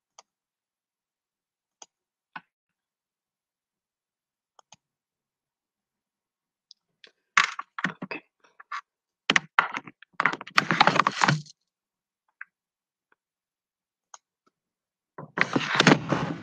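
A few faint computer clicks, then louder bursts of clicking, knocking and clatter at a computer desk, starting about seven seconds in and again near the end, as a screen share is being set up.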